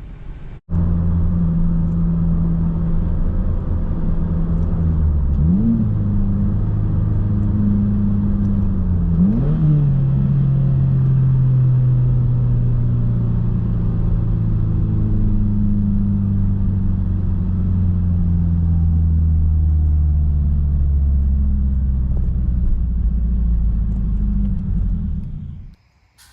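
2023 Subaru WRX's turbocharged 2.4-litre flat-four running under way. The engine note rises sharply twice, about five and nine seconds in, then drifts slowly lower before cutting off abruptly near the end.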